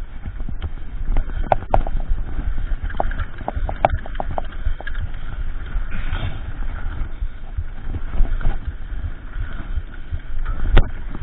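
Mountain bike ridden fast over a rough dirt trail: a steady rumble from the tyres on the ground, with frequent sharp rattles and knocks from the bike over bumps, and wind on the microphone.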